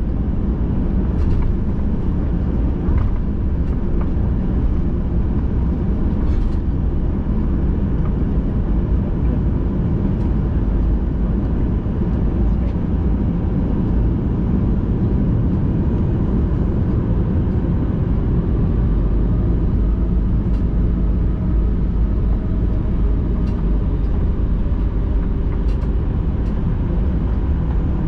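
Steady low rumble of a Boeing 737-800's cabin with its CFM56 turbofans running, heard from inside the passenger cabin, with a faint steady whine and a few light clicks.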